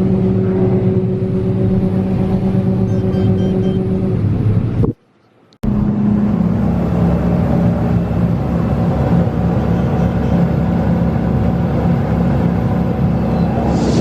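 Heavy harvest machinery engine running steadily at a constant speed. The sound cuts out completely for about half a second around five seconds in, then picks up again with the same steady drone.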